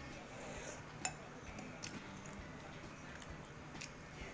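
A metal spoon clinking against a bowl of meatball soup several times, the sharpest clink about a second in.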